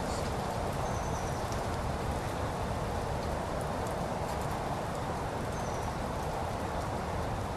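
Steady, even hiss of light falling water drops on foliage and lawn. Two faint short high chirps come through, about a second in and again late on.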